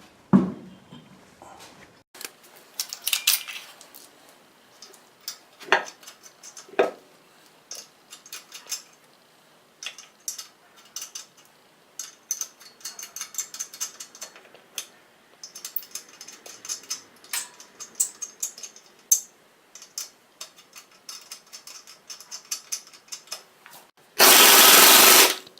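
Scattered metal clinks and clunks of a wheel being hung on the hub and lug nuts being started by hand, then a loud burst of about a second and a half from an air impact wrench near the end as a lug nut is run down.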